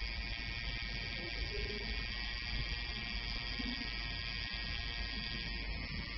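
Permanent-makeup machine's small motor running steadily with an even, high-pitched buzz while the needle draws hair strokes into an eyebrow.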